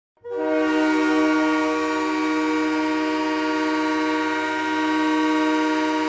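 Tucson Roadrunners' arena goal horn sounding one long, steady blast of several tones at once, starting a moment in.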